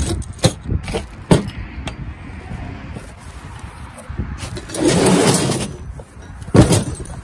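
Bagged engine-kit parts and a chrome exhaust pipe being handled and set down on a plastic folding table: several sharp clicks and clunks, a noisy rustling, sliding rush about five seconds in, and a heavier thump near the end.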